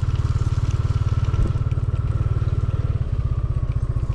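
Motor scooter engine running steadily, with an even low pulsing, heard from the rider's seat on a rough dirt track. A faint steady high tone fades out about three seconds in, and a single light knock comes about a second and a half in.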